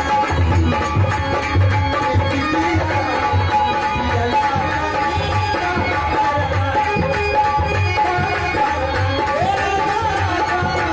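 Live folk stage music over a loudspeaker system: a tabla-style hand drum keeps a steady beat under a held instrument note, with a woman singing into a microphone.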